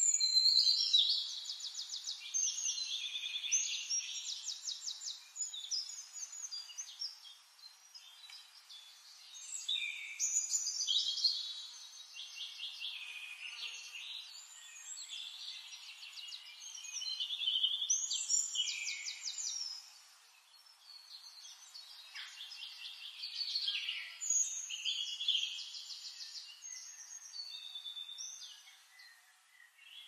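Forest songbirds singing: several high, fast trilled songs overlapping, coming in phrases that swell every few seconds.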